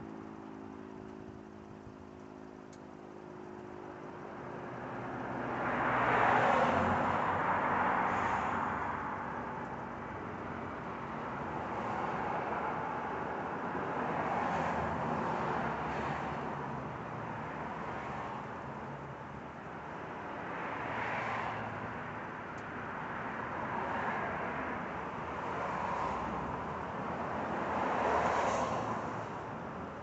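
Road traffic passing: a rushing noise from cars that swells and fades several times, loudest about six seconds in and near the end. A low steady hum dies away in the first few seconds.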